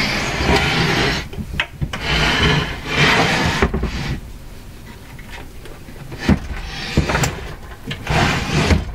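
Wooden cabinet of a Philco 48-1826 console radio-phonograph being shoved and turned on a wooden workbench: several rough scraping slides of wood on wood, with a few sharp knocks about two-thirds of the way through.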